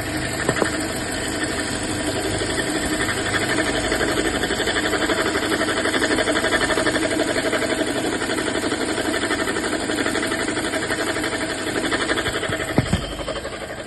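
2018 Toyota Corolla engine idling with a steady, fast rattling chatter from the alternator and belt area, the sign of a worn alternator bearing. There is a sharp knock about half a second in and another near the end.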